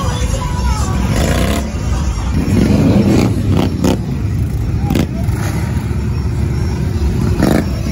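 Mud-bog truck engine running loud, a deep steady rumble, with a few sharp knocks over it.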